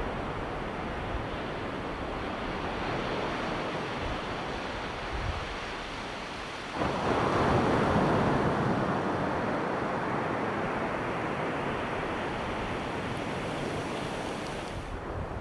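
Ocean surf with waves breaking on the beach. About halfway through a wave crashes and the sound jumps louder, then slowly washes out.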